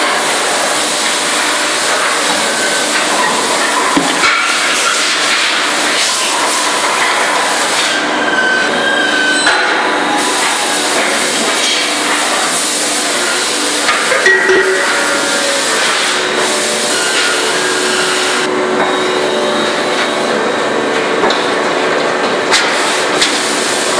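Steady, loud factory machinery noise, with a few sharp metal knocks and clanks as a heavy metal wheel is handled by an industrial manipulator.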